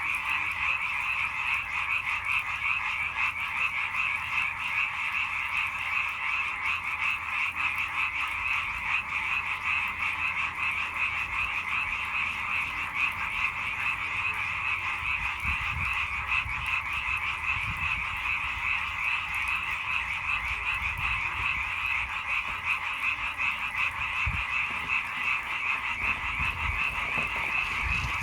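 A dense chorus of many frogs croaking together without a break, a steady, rapid, overlapping pulsing.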